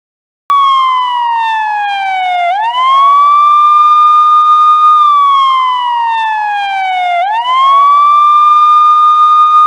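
Police car siren wailing loudly, starting abruptly about half a second in. Its single tone slides down over about two seconds, then sweeps quickly back up and holds, twice over.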